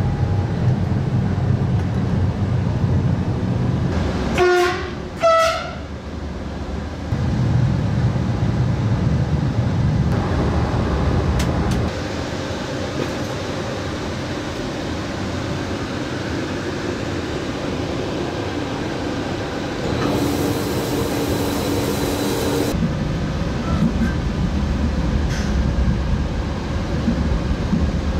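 Electric train running at speed, heard from inside the driver's cab as a steady rumble of track and running noise. About four and five seconds in, the horn sounds two short blasts a second apart. Later, a few seconds of added hiss come over the running noise.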